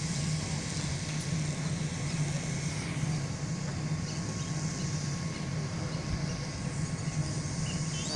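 Fire truck's diesel engine running steadily, a constant low drone.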